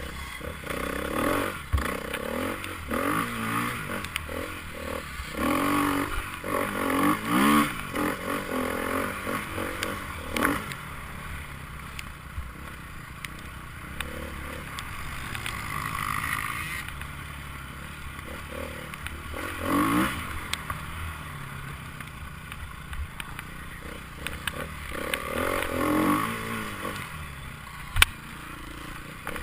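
Enduro motorcycles revving as they pass, engine pitch rising and falling in repeated bursts that are busiest in the first ten seconds and come again about two-thirds of the way through and near the end. A single sharp knock sounds near the end.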